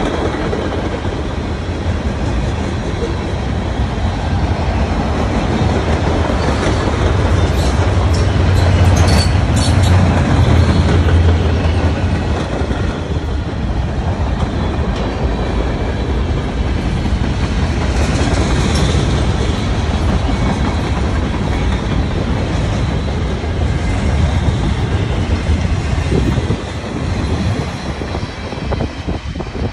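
Freight cars (tank cars, boxcars and container well cars) rolling past: a steady, loud rumble of steel wheels on rail with clickety-clack, and brief wheel squeal about eight and again about eighteen seconds in.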